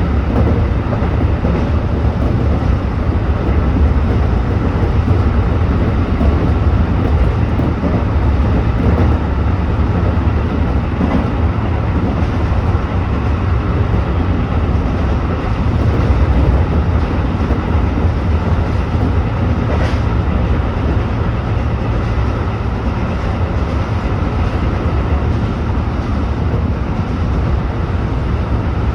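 Tobu 8000-series electric train running at speed between stations, heard from inside the leading car: a steady, low rumble of wheels on rail and running gear, with a faint click about twenty seconds in.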